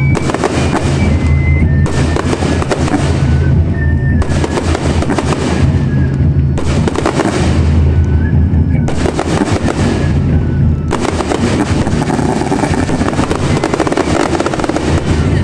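Aerial fireworks bursting and crackling densely, over loud music with a steady bass line played alongside the display.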